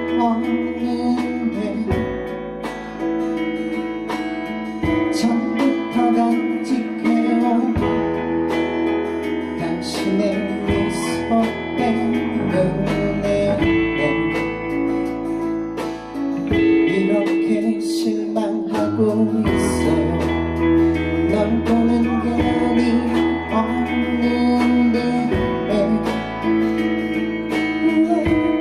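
A band playing a song led by strummed guitar, over bass notes that change every few seconds and cymbal hits.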